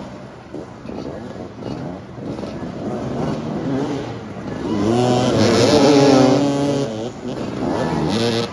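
Several motoball motorcycle engines revving, their pitch rising and falling as the riders jockey for the ball, loudest about five to seven seconds in.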